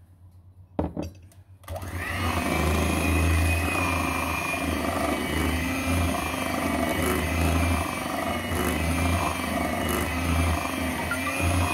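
A knock a little under a second in, then an electric hand mixer starts and runs steadily, its beaters working cake batter in a glass bowl.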